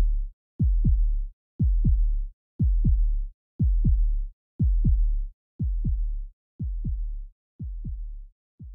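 Electronic heartbeat-style intro beat: pairs of deep thumps that drop in pitch, about one pair a second, growing fainter over the last few seconds.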